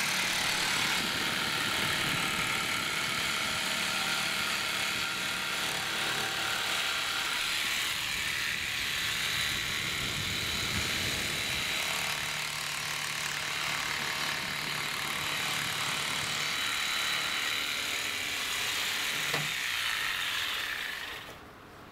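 Electric jigsaw running and cutting through a wooden floor board, a steady noise that stops near the end.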